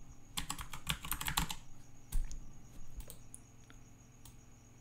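Typing on a computer keyboard: a quick run of keystrokes in the first second and a half, then a few single clicks further apart.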